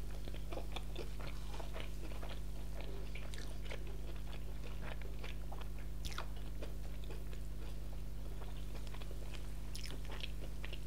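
Close-up chewing and biting of crispy fried chicken, with many small irregular crunches and one sharper crunch about six seconds in, over a steady low electrical hum.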